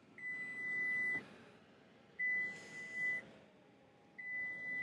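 Ford F-150 Lightning power frunk sounding its warning beep while the lid powers closed: three steady, high, one-second beeps about two seconds apart.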